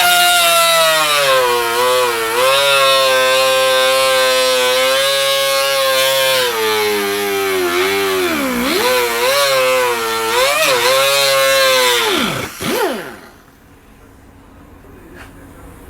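High-pitched electric power tool running, its pitch dipping several times as it is pressed into the work, then spinning down near the end.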